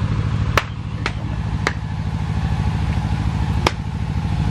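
A steady, low, pulsing engine rumble, with four sharp knocks spread across it.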